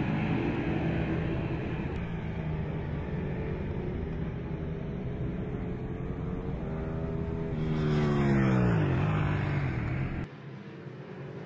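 Racing superbike engines at high revs as bikes speed past; about eight seconds in one passes close and loud, its pitch falling steeply as it goes by. The sound drops suddenly near the end.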